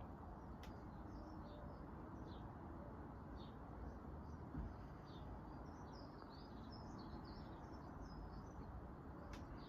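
Faint birdsong: many short high chirps, coming more often in the second half, over a low steady outdoor background noise. A single soft thump about halfway through.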